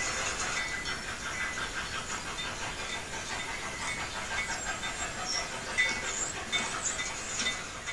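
Model train running on the layout's track: an even hiss of small wheels rolling on rail, with short high-pitched squeaks now and then.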